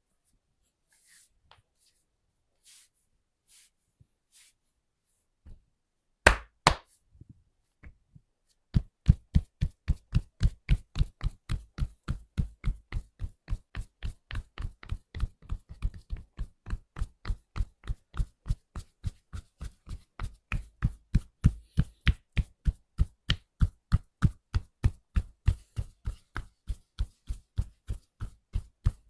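Percussive hand massage: the masseur's hands striking the body in quick, even strokes, about three to four a second. Before that come a few faint taps and two harder slaps.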